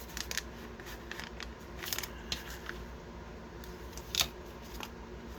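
Small plastic diamond-painting tools and bags being handled: scattered light clicks and rustles, with one sharper click about four seconds in.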